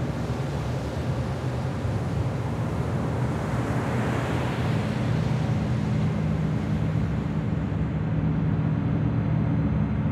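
A boat's engine running steadily with a low hum, under an even rush of water.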